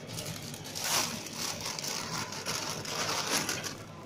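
Thin plastic bag rustling and crinkling as a handful of arugula is pulled out of it, starting about half a second in.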